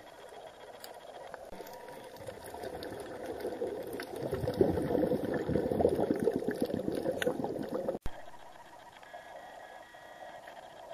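Scuba diver's exhaled bubbles heard underwater, bubbling and crackling, building to a loud stretch for a few seconds, then stopping abruptly about eight seconds in; faint steady noise follows.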